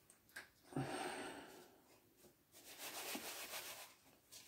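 Faint rustling and soft knocks of chicken pieces being turned and pressed into seasoned flour in a plastic tub, with a light knock about a second in.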